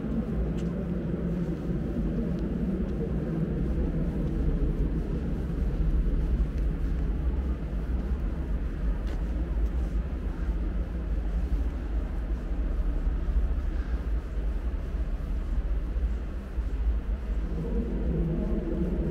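Steady low rumble of background noise in a vast underground salt-mine chamber, with a few faint clicks.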